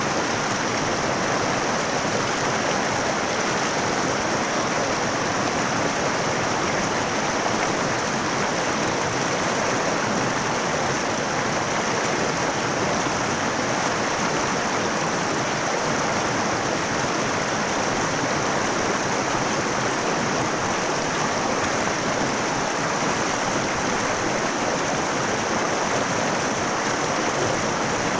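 Mountain river water flowing steadily over rocks, an even rushing sound.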